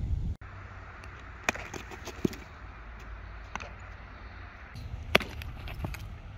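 Outdoor ball-field ambience with a low wind rumble, broken by several sharp smacks of a baseball at drill work. The loudest smack comes about five seconds in.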